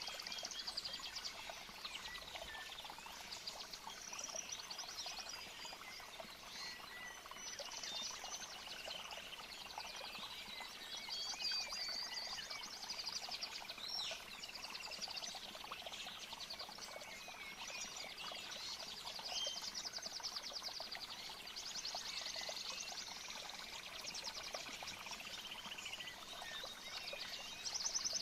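Nature soundscape: a stream of running water with birds chirping and trilling over it.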